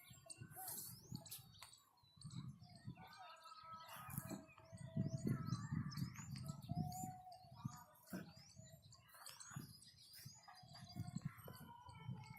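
A bird chirping over and over in a quick series of short, high, rising calls. Under it runs an uneven low rumble.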